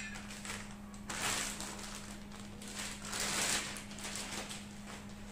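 Clear plastic packaging bags rustling and crinkling as they are handled and pulled off a black metal motorcycle rack arm, in two main spells, about a second in and around three seconds in. A steady low hum runs underneath.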